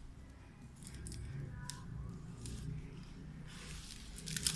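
Clear plastic wrapping around a VGA cable crinkling in a few short, scattered rustles as it is handled and pulled off, the last and loudest near the end.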